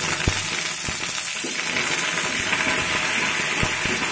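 Curry leaves sizzling and spattering as they hit hot oil in a frying pan, a tadka of mustard seeds, cumin, garlic and onion: a loud, steady sizzle with a few sharp pops of spitting oil.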